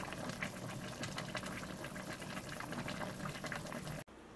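Soy-sauce braising liquid with pork back ribs bubbling hard in a stainless-steel pot, a dense crackle of small popping bubbles. It cuts off abruptly near the end to quiet room tone.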